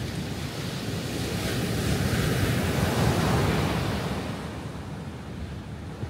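Sea waves breaking on the shore: one wave swells up to a crash about two to three seconds in, then its wash fades away.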